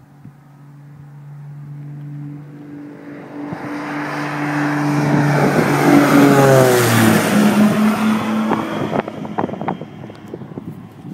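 Piper PA-34 Seneca twin-engine piston airplane at takeoff power passing low overhead: the drone of its engines and propellers grows louder, peaks about seven seconds in, then drops in pitch as it climbs away.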